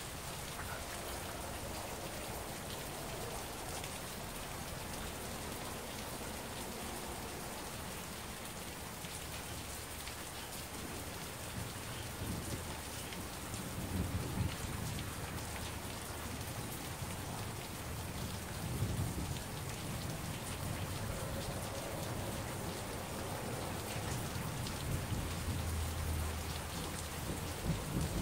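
Steady rain falling, with thunder rumbling in from about halfway through and swelling again near the end.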